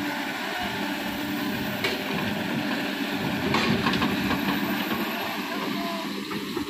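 Kobelco excavator's diesel engine running steadily under load while it works earth, with a few short knocks and clatter about two and three and a half seconds in.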